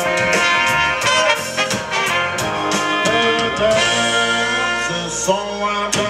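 Live blues band playing: a trumpet and saxophone horn section over electric guitar, keyboard, bass and drums, with a steady drum beat.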